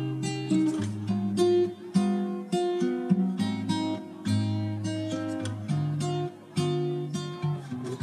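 Background music: an acoustic guitar plucking and strumming a melody over a bass line, with notes about twice a second.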